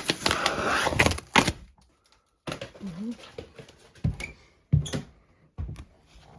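Rough scraping and rustling for about a second and a half, then a few separate knocks and thumps, as material is pulled down and handled.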